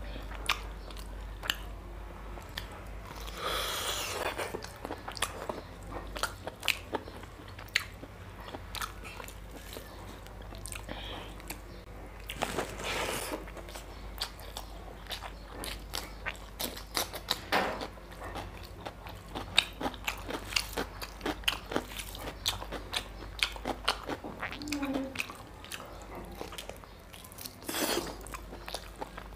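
Close-miked mouth sounds of a person eating mutton curry and rice by hand: chewing and biting, with many short sharp clicks and a few louder noisy bursts.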